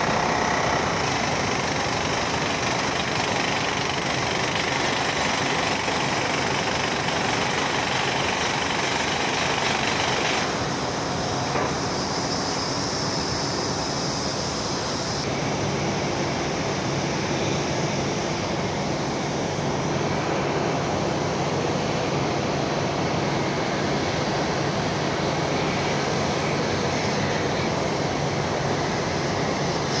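Steady, unbroken industrial noise in a blast furnace cast house during tapping, from the furnace's machinery, air and fume handling and the tap itself. There are no separate knocks or bangs. The tone of the noise shifts slightly about ten and fifteen seconds in.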